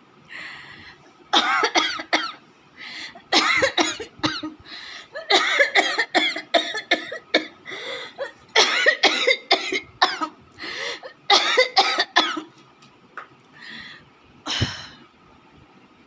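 A woman coughing deliberately into her fist, in about five hard fits of several coughs each with short pauses between, and one last single cough near the end.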